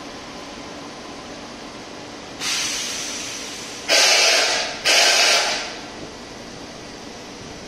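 Three loud hisses of compressed air venting from a train's pneumatic system, about a second each and back to back, starting about two and a half seconds in. A steady electric hum runs underneath.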